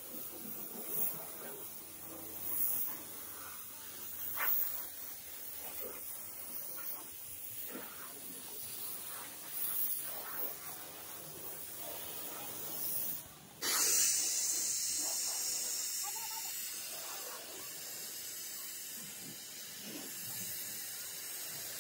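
Pressure-washer water spray hissing as it is sprayed against a car's underside and body panels. About two-thirds of the way through it cuts out briefly, then returns as a louder, brighter hiss.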